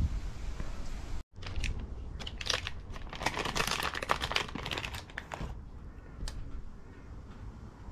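Plastic packet crinkling and crackling as it is handled and opened, a dense run of crackles lasting about four seconds, followed by quieter handling and a single click.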